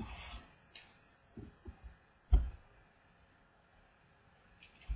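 Trading cards handled on a wooden tabletop: a short rustle of a card sliding at the start, a click and a few light taps, and one louder knock about two seconds in as a card or hand is set down on the table.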